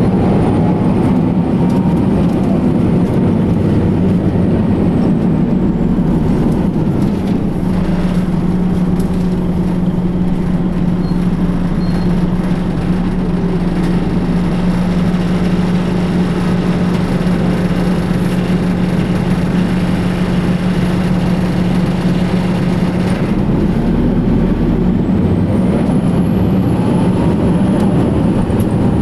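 Diesel engine of a New Flyer D60HF articulated bus (Detroit Diesel Series 50 EGR with Allison B500R transmission): engine and drivetrain tones fall for the first few seconds, then settle into a steady low drone for about fifteen seconds, and rise again over the last few seconds as the bus pulls away, with a faint high whine.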